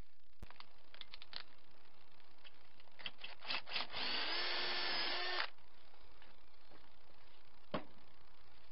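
Corded electric drill boring into a mild steel strip, running for about a second and a half in the middle after a few short clicks. One sharp click near the end.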